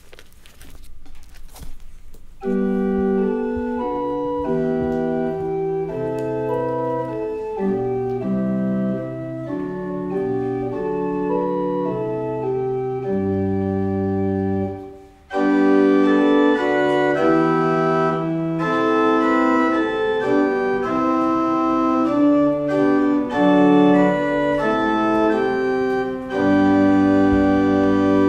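Pipe organ playing held, changing chords, starting about two seconds in. A softer phrase breaks off briefly about fifteen seconds in, followed by a louder, fuller phrase.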